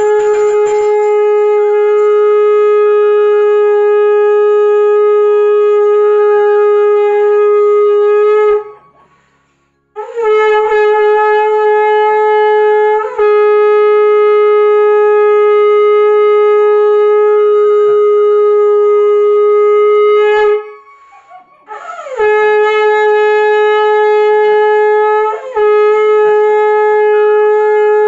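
A conch shell (shankh) blown loudly in long, steady, horn-like blasts on one held note. It breaks off twice for a breath of about a second, and the note briefly dips twice more.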